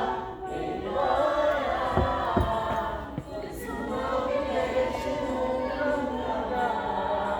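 Several voices singing together in chorus, with two dull thumps about two seconds in.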